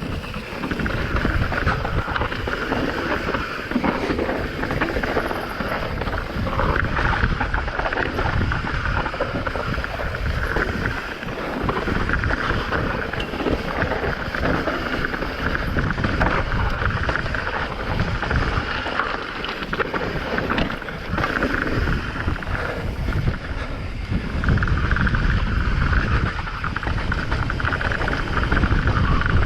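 Wind buffeting the microphone with the continuous rattle and tyre noise of a mountain bike descending a rough trail at speed.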